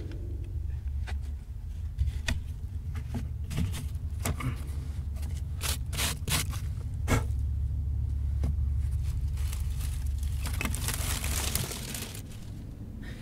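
Hands setting dried clay pieces into an adobe stove's firebox: a run of scrapes and light knocks of clay on clay and earth, with a rustling stretch near the end and a low steady rumble underneath.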